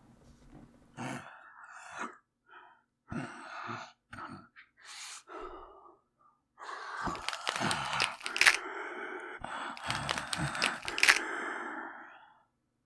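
A man's strained gasps and groans of pain mixed with cracking sound effects, an acted werewolf transformation with bones breaking and reshaping. Short separate gasps at first, then about halfway through a louder, unbroken stretch of groaning with sharp cracks.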